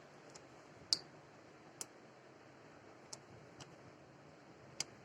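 About six faint, sharp clicks and taps at irregular intervals, the loudest about a second in. These are the parts of an opened laptop's hard-drive bay being handled while the drive is worked loose.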